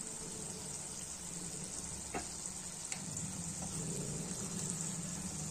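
Masala-coated chicken sizzling steadily in a kadai over a low flame, with a few faint clicks around the middle.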